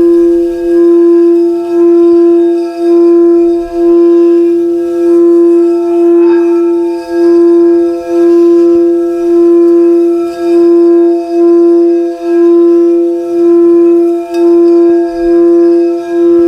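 Singing bowl sung by rubbing its rim: one steady ringing tone with overtones that swells and dips about once a second.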